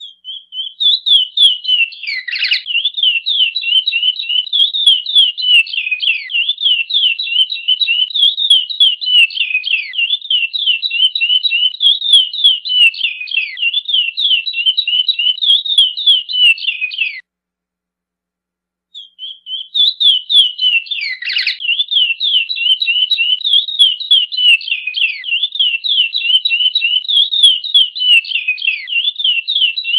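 Chestnut-bellied seed finch (curió) singing its 'praia' song: a long, fast run of quick sliding, whistled notes. It breaks off about 17 seconds in and starts again about two seconds later.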